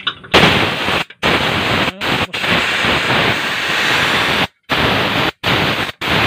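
Compressed air blasting out of the Isuzu Forward truck's air-brake tank drain valve as its pull ring is tugged, spraying out water-laden mist: the tank is full of water that was never drained. A loud, steady hiss starts suddenly just after the start and is cut off briefly several times as the valve snaps shut and is pulled open again.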